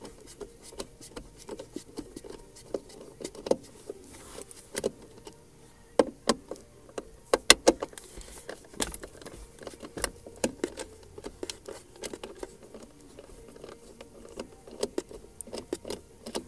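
Irregular metallic clicks, clinks and small knocks from a hand tool on the 10mm bolts under the gear-shifter console, as the bolts are worked loose, with brief quick clusters of clicks.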